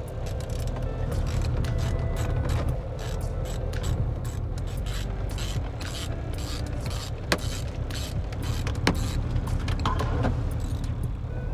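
Hand socket ratchet clicking in quick runs as dashboard bolts are backed out, with a couple of sharper clicks past the middle. A steady low rumble runs underneath.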